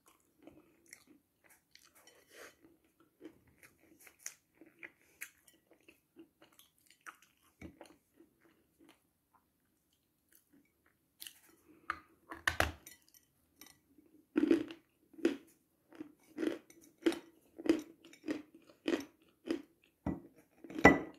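Dry chalk being bitten and chewed close to the microphone. Faint mouth sounds in the first half, then sharp crunches from about halfway, settling into a regular chewing rhythm of about one and a half crunches a second, the loudest near the end.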